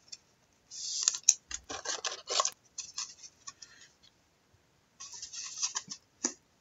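Trading cards being handled and a card slid into a plastic sleeve: a scratchy rustle about a second in, then a run of short clicks and rustles, pausing briefly before more near the end.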